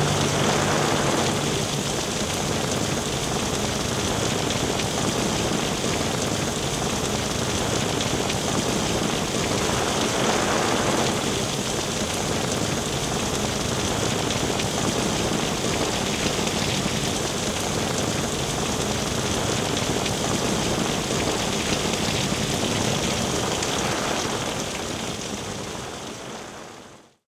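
Heavy rain falling steadily, fading out to silence near the end.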